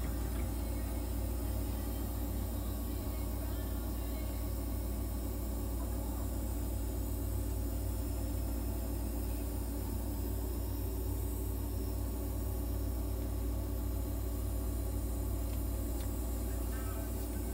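Steady low machine hum from a nebulizer running, delivering medicated mist for inhalation therapy.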